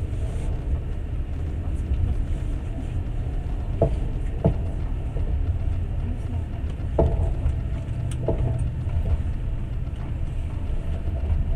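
Passenger train running, heard from inside the carriage: a steady low rumble from the wheels on the rails, with a few sharp knocks in pairs as the wheels cross rail joints.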